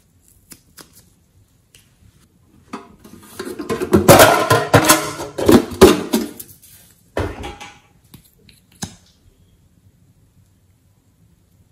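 Metal tin box being handled and its lid worked open, giving a few seconds of loud clanking and rattling, then a shorter clatter and a single click.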